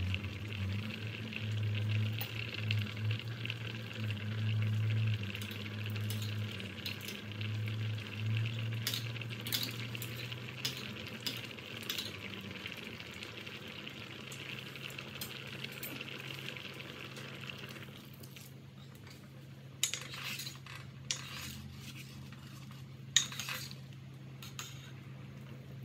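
Water boiling hard in a pot of sweet potato chunks, a steady bubbling hiss over a low hum. About two-thirds of the way in the bubbling drops away, and a metal ladle stirs and clinks against the pot a few times.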